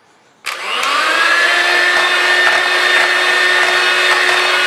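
Electric hand mixer switched on about half a second in, its motor spinning up quickly to a steady whine as the twin beaters whip cream.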